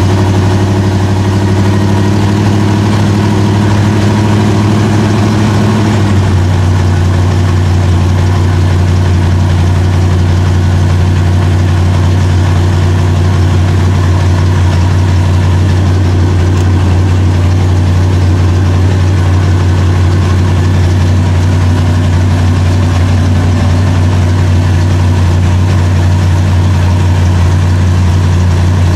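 A 1979 Chrysler 300's 360 small-block V8 idling right after a cold start, having sat unstarted for about three months. The idle is steady, and its note shifts slightly lower about six seconds in. It is heard from the driver's seat.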